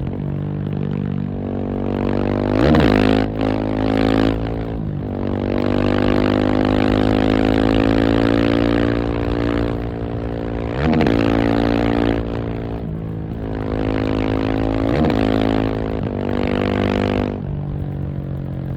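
KTM 690 SMC R's single-cylinder engine running under way, revs rising and falling with about five quick sharp changes in pitch, typical of gear shifts and throttle blips.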